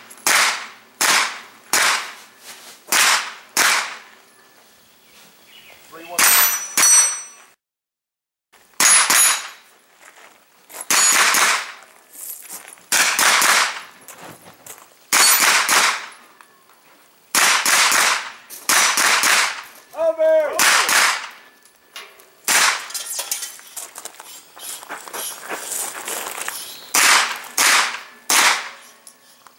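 Pistol-caliber carbine firing a long string of shots, often in quick runs about half a second apart with pauses between them, with steel targets ringing when hit.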